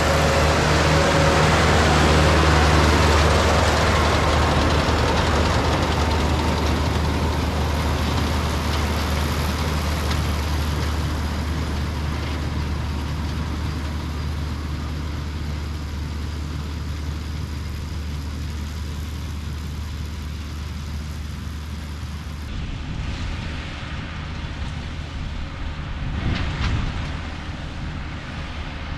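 Tractor engine running at a steady speed while baling hay, a continuous low drone under a broad machinery noise that slowly grows quieter. A short louder patch comes about 26 seconds in.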